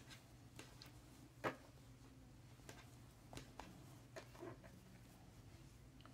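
Near silence with faint, scattered clicks and soft rustles of a crochet hook and hands working single crochet stitches in yarn; one click, about one and a half seconds in, is a little louder.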